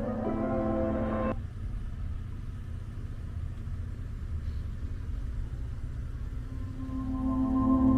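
Low steady rumble of an off-road truck driving. Soft background music cuts out about a second in and comes back near the end.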